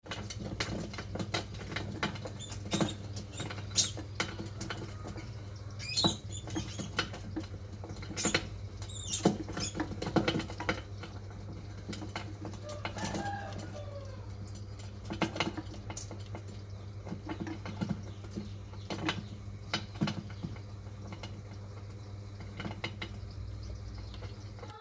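Mice scrabbling and scratching on a hard surface, with many irregular clicks and taps, over a steady low hum. A brief squeak about thirteen seconds in.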